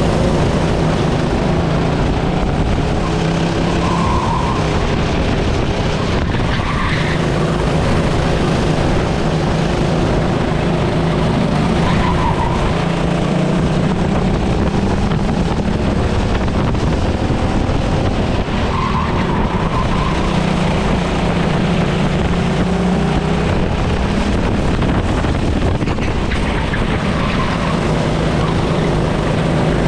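Race car engine running hard without a break, a steady loud drone whose pitch rises and falls a little, over and over, under tyre and road noise.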